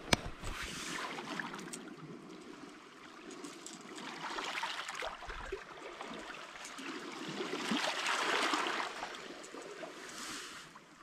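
Water washing and splashing in swells that build and fade several times, with a sharp click near the start.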